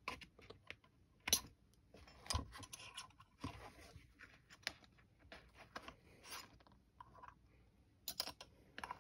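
Faint, irregular clicks and scratching from hand work: a metal punch and a metal accessory rail being handled against a fabric-covered spotting scope. A few sharper clicks stand out, with a quick cluster near the end.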